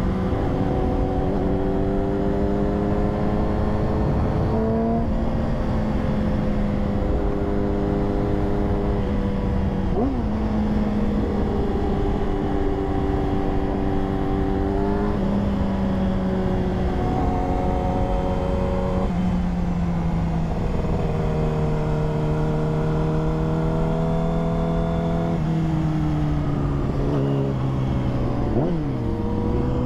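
Sport bike's inline-four engine running at highway speed under wind rush. The engine note steps up and down in pitch several times and settles lower over the second half.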